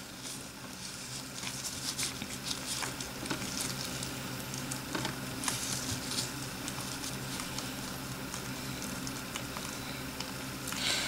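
Sticky slime and softened Play-Doh being squished and worked together: a steady run of faint wet crackling and small irregular clicks.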